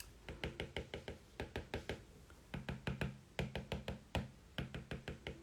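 A stylus tip tapping quickly on an iPad's glass screen, dabbing dots of colour: light knocks at about four or five a second, in short runs.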